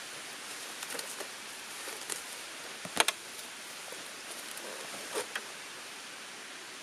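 Gear being unloaded from a scooter's rear wire luggage basket: a cargo net's hooks unclipped and a dry bag lifted off, making scattered light clicks and knocks over a steady background hiss. The loudest is a quick double click about three seconds in, with another knock about five seconds in.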